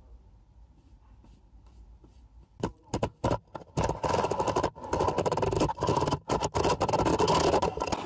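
Glitter bomb being handled right at its built-in microphones: a few sharp knocks about two and a half seconds in, then loud continuous scraping and rubbing against the casing.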